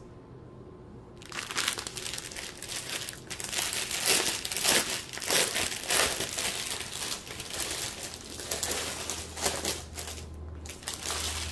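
Plastic packaging crinkling as a strip of sealed plastic bags of diamond painting drills is handled, starting about a second in and going on in irregular rustles, with a short lull near the end.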